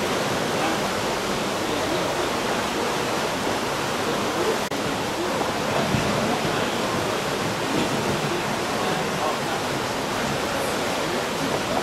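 Fast, churning river water rushing steadily around a pontoon boat, with the splashing of a wooden oar driven through it. A single sharp click about halfway through.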